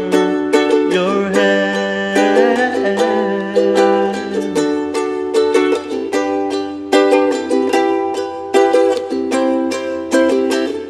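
All-koa soprano ukulele strummed in a steady rhythm of chords. A voice holds and bends a last sung note over the strumming, ending about four and a half seconds in; the ukulele then plays on alone.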